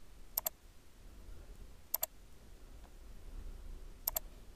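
Clicking at a computer: three quick double clicks, about two seconds apart.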